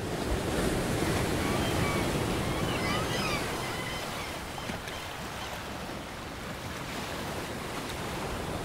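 Sea surf washing steadily, a little louder in the first few seconds, with a few faint short high chirps about one to three seconds in.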